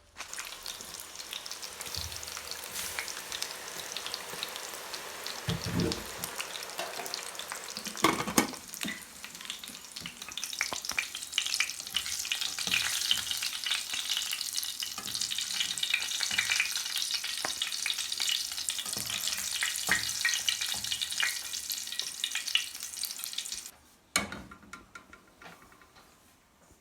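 Food frying and sizzling in a hot pan while a utensil stirs it, with a few louder knocks against the pan. The sizzling stops abruptly near the end, followed by a couple of knocks.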